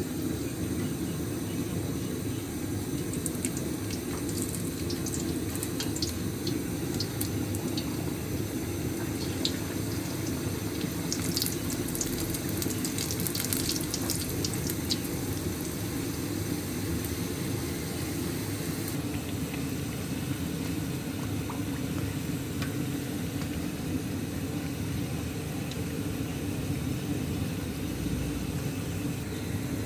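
Samosas deep-frying in hot oil in a wok: a steady sizzling and bubbling, with sharp crackles and pops scattered through the first half.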